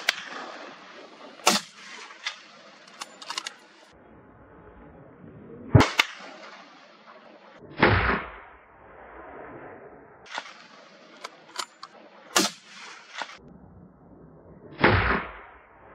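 Hunting rifle shots: five loud reports a few seconds apart, three sharp and cracking, two duller. Lighter clicks come between the shots.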